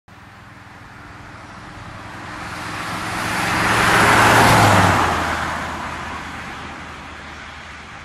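Supercharged 1957 Ford Thunderbird with its F-code 312 cubic-inch V8 driving past: engine note and tyre noise build up, peak about four to five seconds in, then fade away. The engine note drops in pitch as the car goes by.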